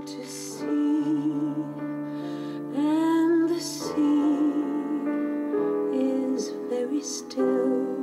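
A woman singing a slow, tender song with piano accompaniment, in long held notes.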